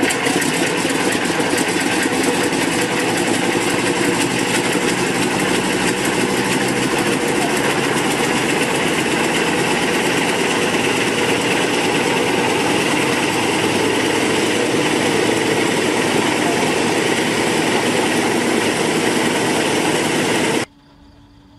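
Fairey Swordfish's Bristol Pegasus nine-cylinder radial engine running steadily and loud; the sound cuts off suddenly near the end.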